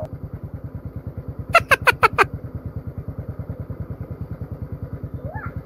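Motorcycle engine idling, an even low pulse of about ten beats a second. About one and a half seconds in come five quick high chirps in a row, and faint chirps return near the end.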